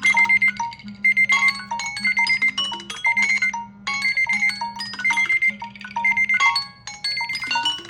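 Smartphone alarm ringtone: a bright electronic melody of quick short notes, repeating in phrases about a second long over a held low note.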